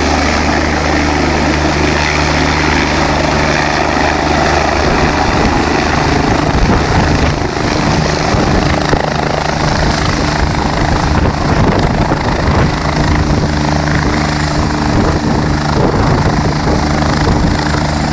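Helicopter coming down to land and then running on the ground with its rotors still turning: a loud, steady rotor and engine noise that grows rougher about five seconds in.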